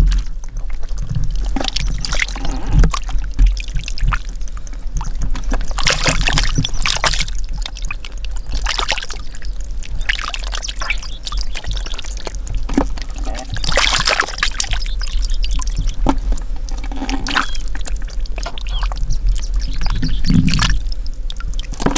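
Hands squelching and sloshing through wet mud and shallow muddy water while groping for catfish, in irregular splashy bursts, over a steady low rumble.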